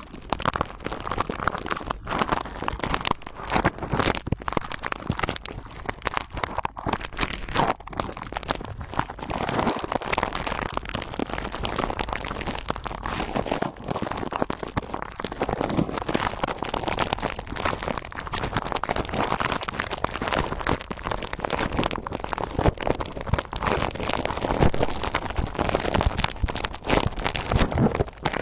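Clear plastic wrap crinkling as fingertips squeeze and rub it around a small object: a dense, continuous run of little crackles.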